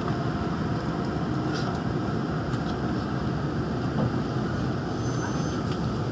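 Steady running noise inside the car of a Daegu Metro Line 3 straddle-type monorail train on rubber tyres, moving slowly alongside a station platform.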